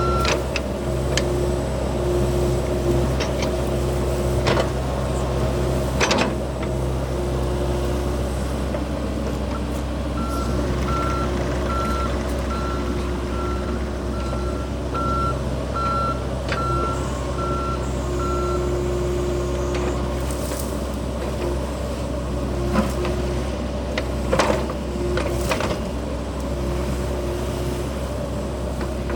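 John Deere 60G compact excavator's diesel engine running steadily. For several seconds in the middle, a travel alarm beeps a little under twice a second. There are a few sharp knocks.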